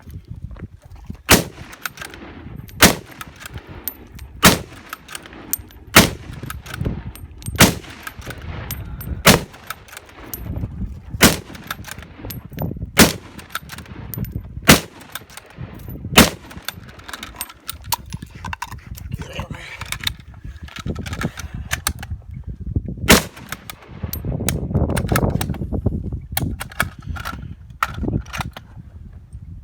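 Rifle shots fired one at a time in a steady string, about one and a half seconds apart, as the shooter engages targets on a practical rifle stage. After a pause of several seconds comes another loud shot, followed by a few fainter reports near the end.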